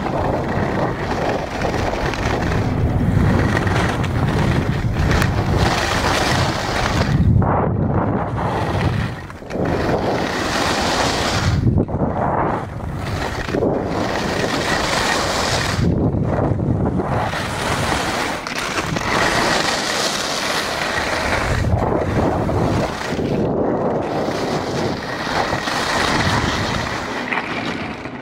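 Wind buffeting the microphone during a fast descent on a groomed ski piste, mixed with the hiss and scrape of skis or board on the snow, the noise swelling and dipping with the turns.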